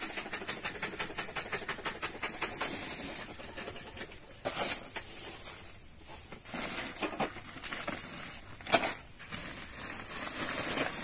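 Cloth and plastic rustling as costumes are handled, with a few sharper crinkles. During the first few seconds a fast run of regular clicks, about six a second, sounds under it.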